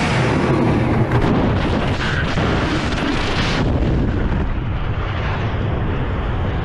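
Loud rushing air blast and rumble as the pilot ejects from a Su-25 attack jet, with a sharp bang about a second in. From about three and a half seconds the hiss drops away, leaving a low wind rumble on the helmet-camera microphone under the parachute.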